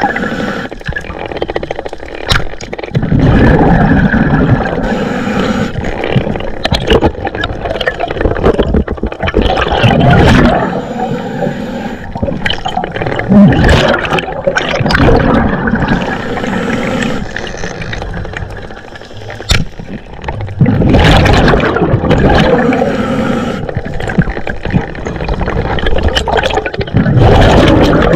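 Scuba diver breathing through a regulator underwater: a hiss on each inhalation and a loud gurgling rush of exhaled bubbles, about five breaths a few seconds apart.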